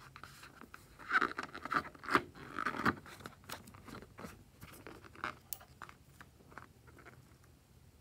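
Hands rubbing and squeezing a filled rubber balloon, the rubber scraping and crackling under the fingers in a dense cluster between about one and three seconds in, then sparser light clicks and rubs.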